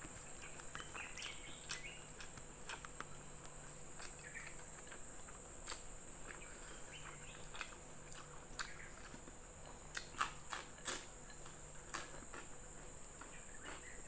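Close-miked chewing and mouth sounds: a scatter of soft wet clicks and smacks as food is chewed, with a few louder smacks about ten to eleven seconds in.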